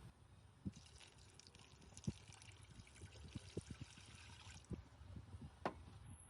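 Liquid being poured in a thin stream for about four and a half seconds, faint, with a few light knocks against the container.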